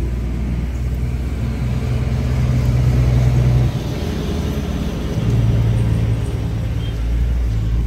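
A loud, steady low rumble like a running vehicle engine, dipping about halfway through and swelling again.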